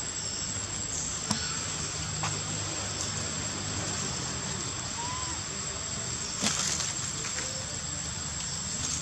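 Forest insects buzzing, a steady high-pitched drone, with a few faint knocks and one short rising squeak about five seconds in.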